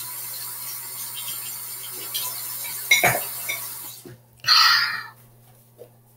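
Steady hiss with small clicks and a loud knock about three seconds in. The hiss cuts off at about four seconds, and half a second later there is a short, loud rush of noise.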